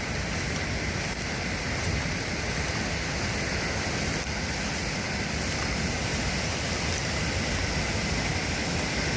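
Fast-flowing floodwater from a river that has broken its dike, rushing steadily without a break.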